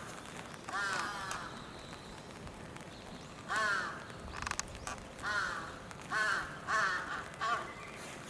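Crow cawing: about six short, harsh caws, one near the start and the rest coming quickly in the second half.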